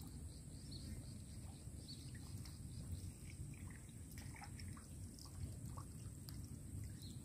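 Faint lakeside ambience: a low steady rumble of wind and water, with scattered faint chirps and small trickling sounds.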